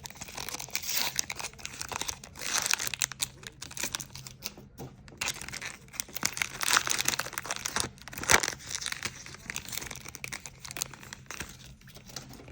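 Foil Pokémon booster pack wrapper being crinkled and torn open by hand, in irregular crackly bursts.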